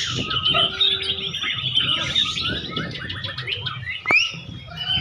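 A white-rumped shama (murai batu) singing among many other caged songbirds at once, a dense mix of fast trills, chirps and whistles. A sharp click and a quick rising whistle come about four seconds in.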